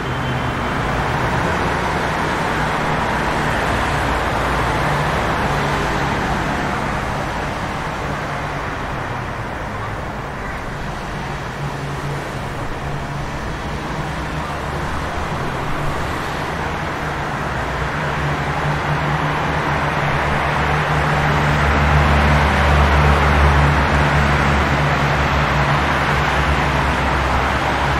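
Rainy city street ambience: steady rain hiss and tyres swishing on wet pavement, under a low vehicle engine drone that swells louder about two-thirds of the way through, as a heavy vehicle idles or passes close by.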